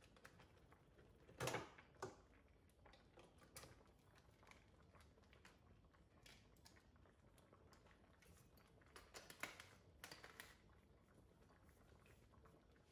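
Near silence broken by a few soft clicks and knocks of a plastic stick blender being handled and put together: a pair about one and a half and two seconds in, and a short cluster about nine to ten seconds in.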